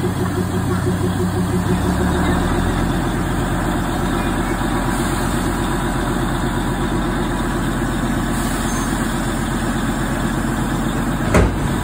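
Narrow-gauge diesel locomotive of the Darjeeling Himalayan Railway idling with an even, pulsing engine note that shifts lower about two seconds in. A single sharp knock sounds near the end.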